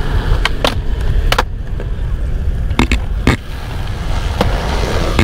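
Skateboard wheels rolling over smooth concrete with a steady low rumble, broken by several short, sharp clacks.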